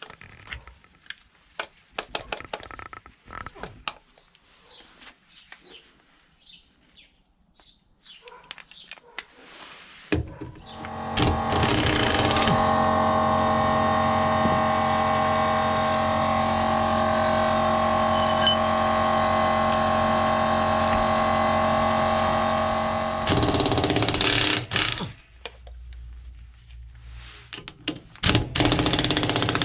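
Light clattering of hands and tools, then a long, loud, steady mechanical run through the middle. Near the end come short rattling bursts of a pneumatic impact wrench loosening the wheel nuts.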